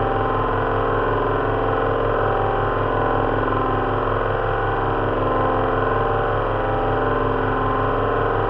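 Simulated sound of an Avro Lancaster's four Rolls-Royce Merlin V12 engines running together at a steady speed, made from several recordings of a speaker-per-cylinder engine simulator mixed with a fan heater's whir standing in for propeller noise. A dense, even drone that holds the same pitch and loudness throughout.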